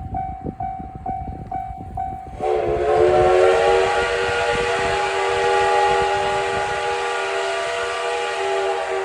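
Steam locomotive whistle of the SL Yamaguchi giving one long blast. It starts suddenly about two and a half seconds in and is held for about six seconds. Before it, a level-crossing warning bell rings in an even on-off pattern about twice a second.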